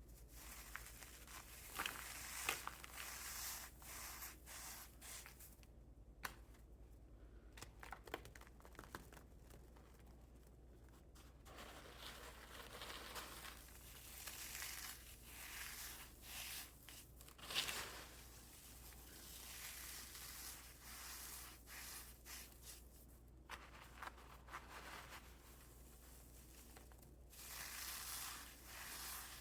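Fragile cornstarch pieces crushed and crumbled, giving soft crunching and crackling in irregular spells with short pauses between.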